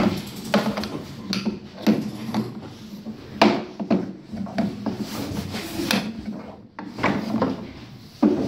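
Wooden knocks and rubbing sounds, irregular, about one every half second or so, over a faint steady hum.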